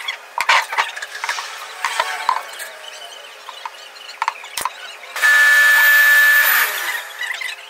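Pneumatic upholstery staple gun firing staples through fabric into a chair frame: a quick run of sharp clicks in the first couple of seconds, a few more scattered ones, and one sharp crack after about four and a half seconds. Then comes the loudest sound, a steady hiss with a whistle-like tone lasting about a second and a half.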